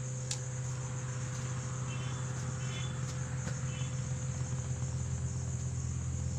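Steady high-pitched chirring of insects over a low steady hum, with three faint short chirps about two to four seconds in.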